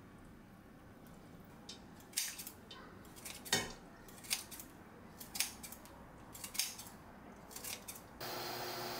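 Kitchen scissors snipping through kimchi held in metal tongs over a stainless-steel pot: about a dozen sharp snips and metal clicks at uneven intervals, the loudest a few seconds in. Just before the end a steady hiss starts abruptly.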